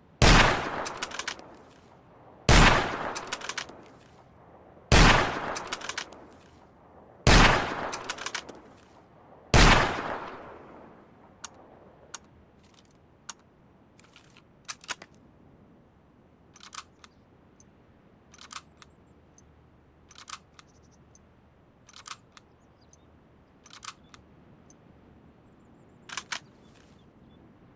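Mosin-Nagant M91/30 bolt-action rifle, chambered in 7.62×54mmR, fired five times about two and a half seconds apart, each shot with a short echoing tail and a few small clacks after it. Then comes a run of quieter metallic clicks and clacks in small clusters, about one cluster every two seconds.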